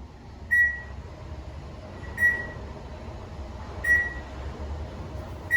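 Otis elevator cab beeping: four short, high single-pitched beeps, evenly spaced about every second and a half to two seconds, over the steady low hum of the moving car.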